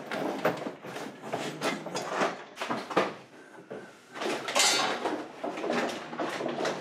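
Rummaging through cardboard boxes on a storage shelf: an uneven run of knocks, scrapes and rustles, with a louder rustle about halfway through.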